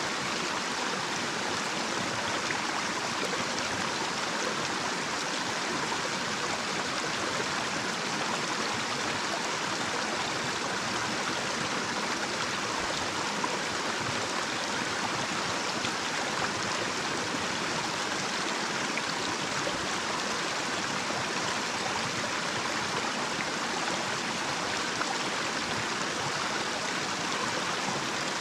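Small, shallow stream running over a little cascade: a steady rush of flowing water, even throughout.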